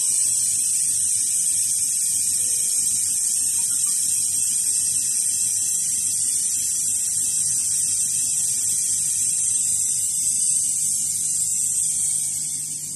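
Steady hiss of compressed air blowing from a CO2 laser cutting machine's air gun, over a low steady hum of the machine's fans and pumps.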